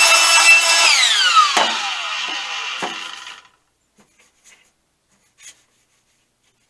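A small electric power tool's motor running at a steady pitch, then switched off about a second in and winding down with a falling whine until it stops after a few seconds. Two knocks come during the spin-down, followed by a few faint taps.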